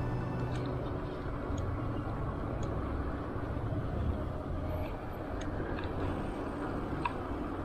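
Steady wind and road noise from a bicycle riding along a paved road, heard on a handlebar-mounted camera's microphone, with a few faint ticks.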